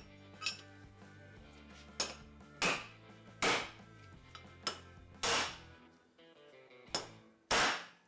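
A series of about eight sharp, irregularly spaced metal knocks as a wheel bearing race is set into an aluminium Jaguar IRS hub carrier with a bearing race installer.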